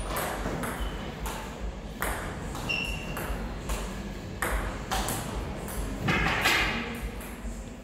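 Celluloid/plastic table tennis ball being hit by rubber-faced bats and bouncing on the table during a rally, a string of sharp pings and clicks about every half second.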